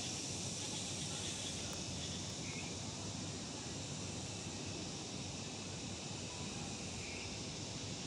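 Steady outdoor background noise under trees: an even, featureless hiss with no distinct events.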